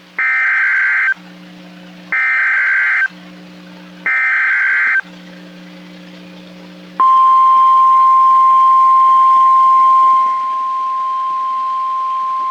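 NOAA Weather Radio emergency alert start: three bursts of SAME digital header data, about a second each and a second apart, then the steady 1050 Hz warning alarm tone, which drops a little in loudness about three seconds after it starts. This sequence signals that a warning, here a tornado warning, is about to be broadcast.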